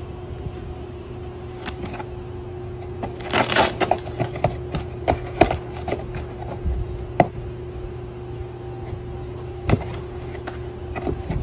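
A cat pawing and scratching at a cardboard box, making a series of taps, scrapes and knocks on the cardboard. They are busiest about three to four seconds in and come in single knocks after that, over a steady low hum.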